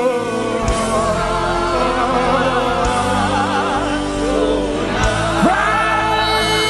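Live gospel worship music: many voices singing long, wavering held notes over a steady band accompaniment.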